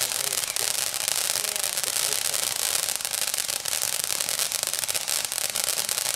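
Black Out ground firework fountain burning: a steady hissing spray of sparks with dense crackling throughout.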